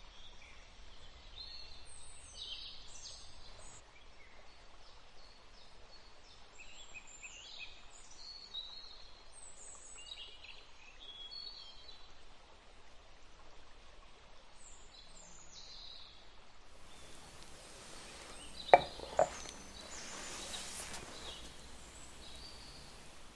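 Birdsong: many short, quick chirps and twitters for most of the first two-thirds. Later, two sharp knocks land about half a second apart.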